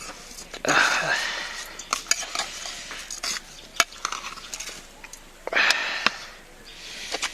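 Cumin seeds sizzling as they hit hot oil in a pressure cooker, with two loud surges of hissing about a second in and near the end. A metal spoon stirs and clinks against the pot.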